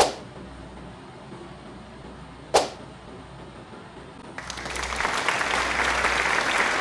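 Two sharp clicks about two and a half seconds apart, then, from about four and a half seconds in, steady applause.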